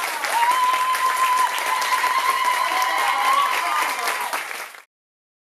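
Audience applauding, with a long high voice call held above the clapping. The sound cuts off sharply near the end.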